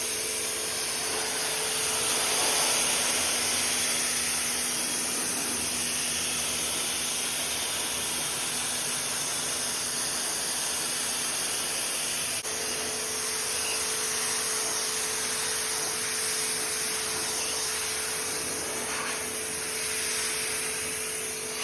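Pressure washer running steadily, its motor humming under the hiss of the water jet spraying.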